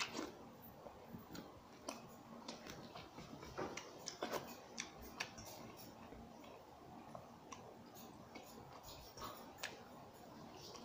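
Faint eating sounds of pakhala bhata eaten by hand: scattered small irregular clicks from chewing and from fingers mixing the watery rice in a steel pot.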